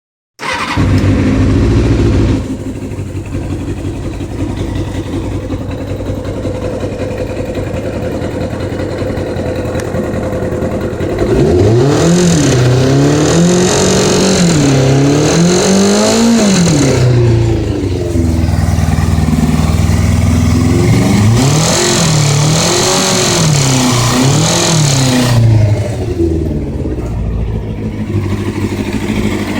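An engine idling steadily, then revved up and down several times in two spells about 11 and 21 seconds in, before settling back to idle. It is being run to show a ticking noise.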